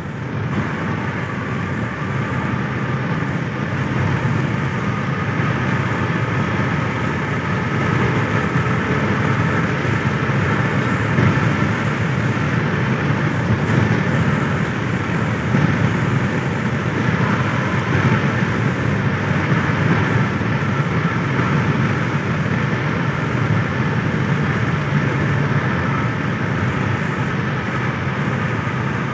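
Steady engine and tyre noise of a car cruising at highway speed, heard from inside the cabin.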